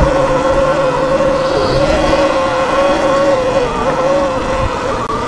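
Stock 2022 Sur Ron X electric dirt bike's motor whining steadily under load as it climbs a steep hill, the pitch sagging briefly about four seconds in, over a low rumble.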